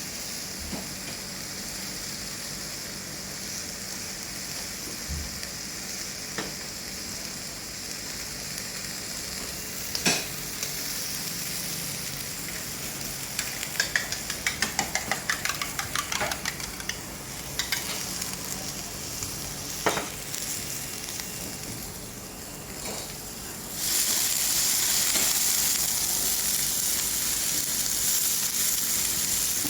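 Fried oysters with egg sizzling on a hot pan, with a metal spatula clicking and scraping against it, including a quick run of strokes in the middle. Near the end the sizzle suddenly grows louder.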